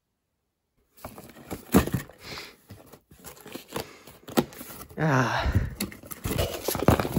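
Cardboard shipping box handled by hand on a blanket: irregular knocks, taps and rustling as it is moved and turned over, with a brief sound from a man's voice about five seconds in.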